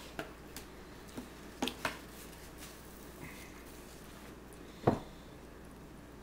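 Metal fork clicking and scraping against a plastic plate as it cuts through a chili-topped hot dog: several light clicks in the first two seconds, then one louder knock about five seconds in.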